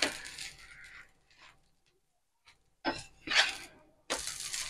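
Steel ladle scraping across a tawa as thick adai batter is spread. There are a couple of short scrapes about three seconds in, then a longer stretch of scraping near the end.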